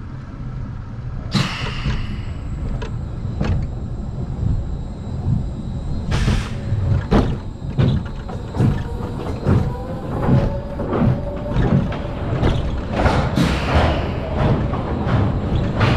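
Rocky Mountain Construction roller coaster train rolling slowly along its final brake run into the station. There is a steady low rumble with repeated clunks, and short hissing bursts come about a second in and again about six seconds in.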